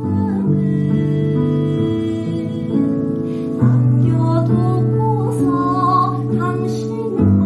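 A woman singing jeongga, Korean classical lyric song, in long wavering held notes over sustained instrumental accompaniment.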